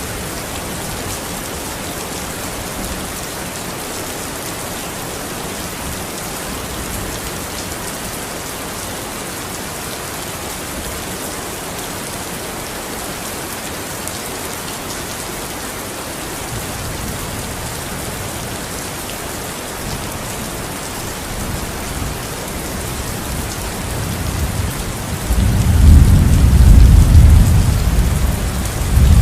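Steady rain falling, with a low rumble of thunder building in the second half and peaking loudly near the end.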